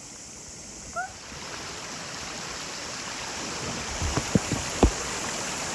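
Rushing river water that grows steadily louder, with a short rising call about a second in and several sharp low impacts near the end.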